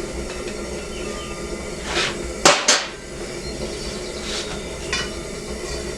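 Hammer blows on hot steel being bent around a pipe, about five strikes with the two loudest close together about halfway through, over a steady low hum.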